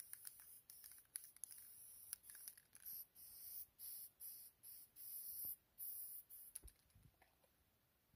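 Aerosol spray paint can hissing in a series of short bursts, about a dozen, each well under a second, with small clicks of the nozzle between them. The spraying stops about six and a half seconds in.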